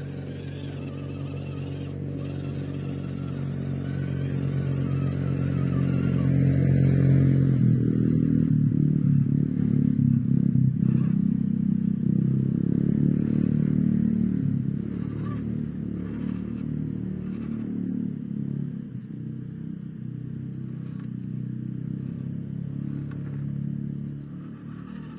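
Steady, engine-like running sound of a 1:12-scale RC 4x4 off-road truck. It grows louder, turns rougher about seven seconds in, and eases off after about fifteen seconds.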